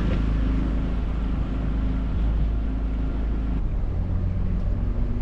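Outboard motor of an inflatable dinghy running steadily under way, with a low hum and a held note that shifts a little past halfway through.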